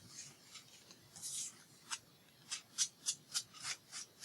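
Short scratchy strokes of an ink applicator rubbed over paper, inking the paper's edges. The strokes come singly at first, then about three or four a second in the second half.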